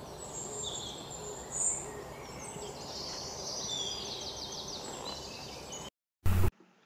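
Forest ambience: birds chirping, with one quick trill, over a steady hiss of background noise. It all cuts off abruptly about six seconds in, and a brief loud burst of sound follows just after.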